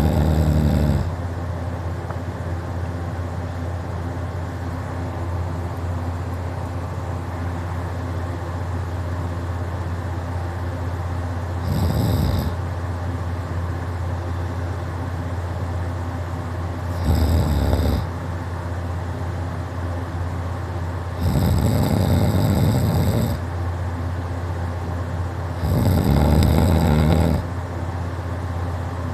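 A man snoring loudly in deep sleep, a snore every four to five seconds, each about a second or two long, over a steady low hum.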